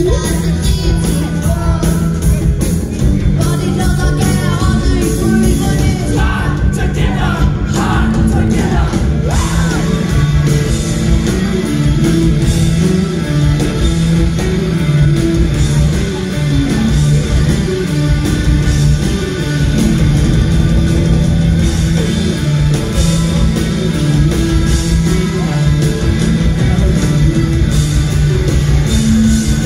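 Rock band playing live, heard from the audience: electric guitar, bass guitar, drums and keyboards, loud and steady.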